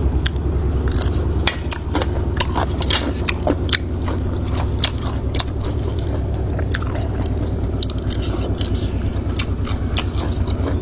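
Close-up chewing and biting of food, with many sharp, irregular crunches, over a steady low pulsing hum.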